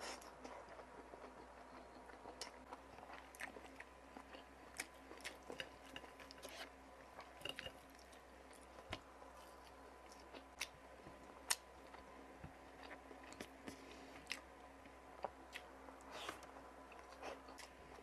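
Faint close-up eating sounds: chewing with frequent small crunches and clicks of mouth and teeth, from a meal of fried round scad (galunggong) and adobo water spinach (adobong kangkong).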